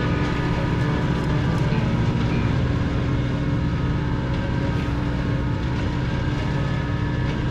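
Tractor running steadily with a flail mower at work cutting grass: a constant engine note with steady higher tones over it, unchanging throughout.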